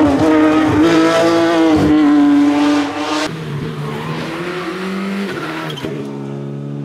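Porsche 911 rally car's flat-six engine at high revs through a corner, its pitch dipping and climbing again with throttle and gear changes. About three seconds in the sound changes abruptly to a second rally car's engine, quieter and farther off, rising and falling as it works through the bend.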